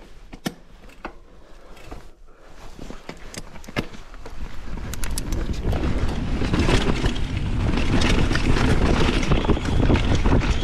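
Downhill mountain bike descending a dirt trail: scattered clicks and rattles from the bike over tyre noise, then wind on the microphone and tyre rumble building about five seconds in as it picks up speed.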